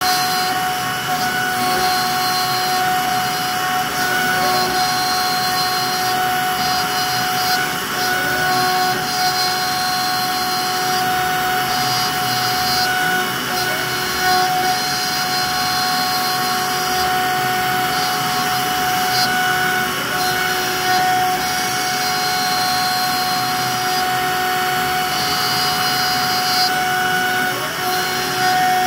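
A CNC router's trim-router spindle running with a steady high whine as its bit carves into a wooden plaque, with the rough cutting noise of the wood throughout. A few short rising tones come and go every few seconds as the machine moves.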